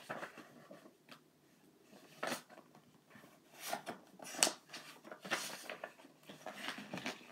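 Pages of a hardcover picture book being turned and handled: a series of short paper rustles and soft knocks with quiet gaps between them.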